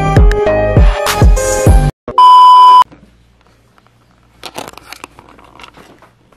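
A hip hop beat with deep sliding 808 bass plays for about two seconds and cuts off abruptly. A loud single-pitch electronic beep follows, lasting under a second, and then only faint scattered small sounds remain.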